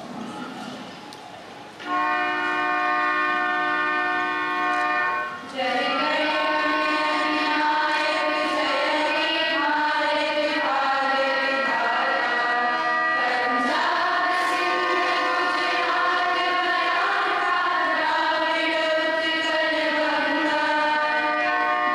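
Choir singing with instrumental accompaniment: a steady held chord comes in about two seconds in, and a group of voices starts singing over it a few seconds later.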